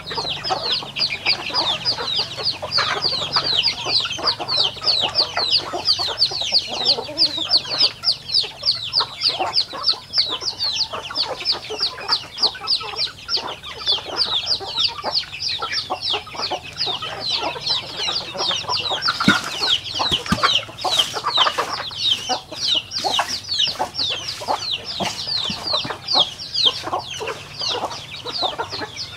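A flock of chickens feeding: hens and roosters clucking low under the constant peeping of chicks, many quick falling chirps a second. A few sharp clicks come about two-thirds of the way through.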